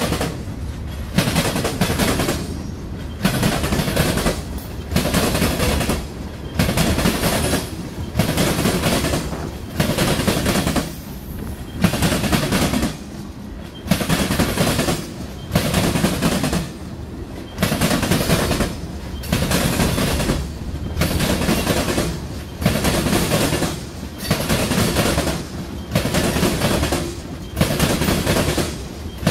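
Freight cars rolling past close by: steel wheels clattering over the rail joints. The clatter swells and drops in a steady rhythm, loud about every two seconds as each car's wheel sets go by.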